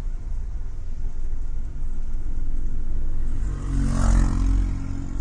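Low rumble of a passing motor vehicle, swelling to its loudest about four seconds in.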